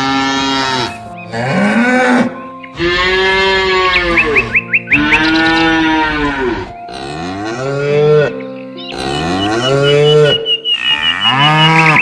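Cattle mooing: a string of about seven long moos, one after another with short breaks, each rising and falling in pitch.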